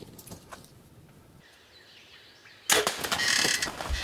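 Faint scattered rustles, then about three quarters in a sudden loud bow shot, followed by a dense run of loud rustling and thumping as the arrowed wild turkey flops and beats its wings on the ground.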